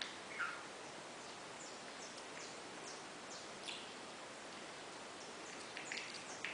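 Pet parakeet giving short, scattered chirps and clicks over a steady faint hiss, a little busier near the start and again near the end.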